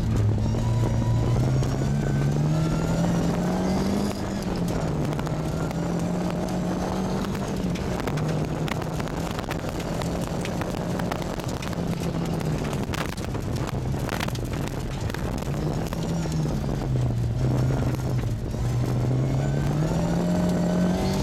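Mk2 Ford Escort rally car's engine heard from inside the cabin at speed on a loose dirt track, its note climbing and dropping as it revs and changes gear. A few sharp knocks, typical of stones flicked against the car, come about two-thirds of the way in.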